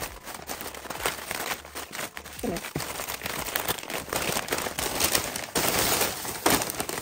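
White packing paper being crumpled and rustled by hand as a plant parcel is unwrapped: continuous crinkling and crackling, loudest in a burst near the end.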